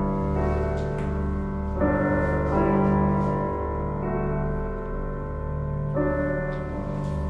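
Slow background piano music, held chords changing every second or two.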